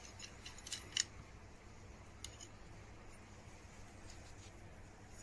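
Faint small metal clicks and taps as a G-clamp's swivel pad is settled and tightened down onto a brass block on a cast-iron plane body: a handful in the first second, a couple more about two seconds later, otherwise a low room hush.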